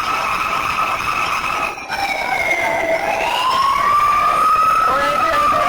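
A siren wailing, with two or three tones held steady at first, then dipping in pitch about halfway through, rising again and slowly falling near the end.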